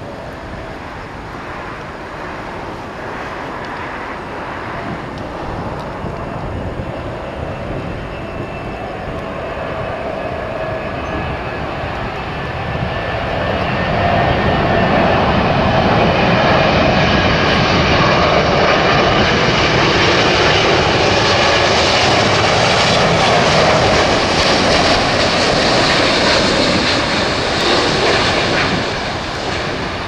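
Twin-engine wide-body jet airliner on final approach: its engine noise builds steadily, turns loud as it passes low overhead about 14 seconds in, and falls away just before the end.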